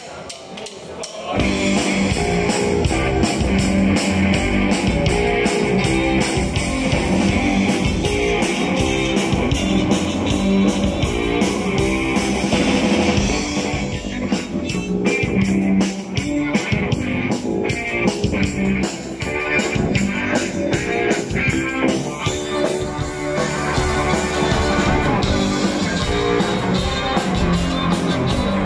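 Live rock band playing an instrumental passage: drum kit, electric guitar and violins together. The music kicks in about a second in after a brief lull.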